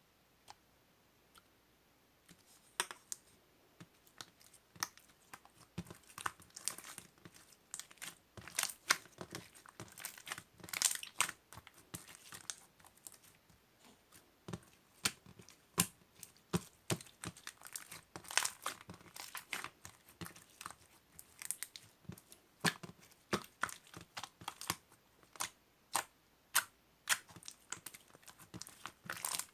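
Irregular crinkling and sharp crackling clicks, as of something crinkly being handled or crumpled, starting about two seconds in and running on densely.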